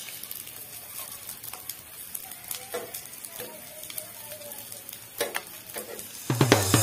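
Embutido slices and stuffed milkfish sizzling quietly on a ridged grill pan, with a few sharp clicks of metal tongs against the pan as the pieces are turned. Background music comes in near the end.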